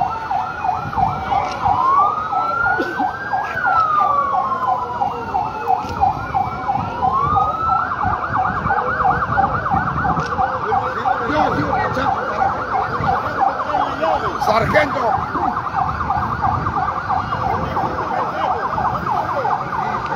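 Emergency vehicle sirens sounding together: a slow wail rising and falling every couple of seconds over a fast warbling yelp. About eight seconds in the wail stops and the yelp carries on alone, higher.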